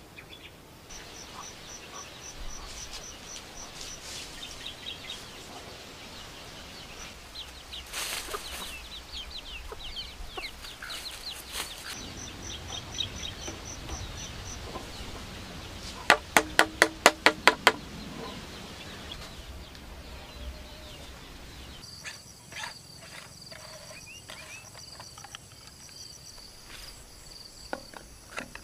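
Yard ambience with small birds chirping in short repeated trills, then a chicken clucking, about eight loud sharp clucks in two seconds, the loudest sound. Near the end, steady high trilling of crickets with soft clicks of plastic pipe fittings being handled.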